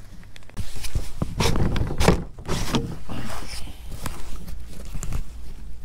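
Knocks, clunks and scrapes of a PVC-pipe rod holder mount being pulled out of its mounts on a plastic kayak, a dense run in the first three and a half seconds, loudest about two seconds in, then a few lighter clicks.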